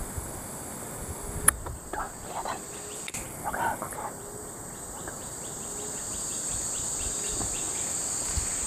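Plantation insects: a steady high-pitched buzz, joined about four seconds in by a fast, even ticking of about five a second. A single sharp click sounds about a second and a half in.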